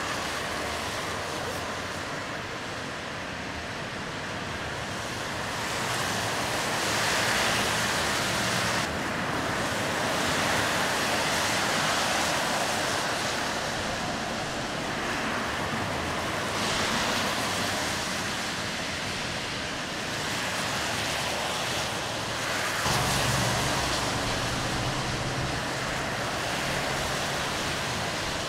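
Road traffic on a wet road: a steady hiss of tyres on rain-soaked asphalt that swells and fades as cars pass. A low engine rumble from heavier vehicles joins in the last third.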